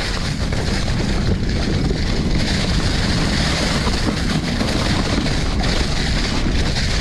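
Mountain bike rolling steadily along a trail covered in dry fallen leaves: tyre and ride noise mixed with wind rushing over the microphone.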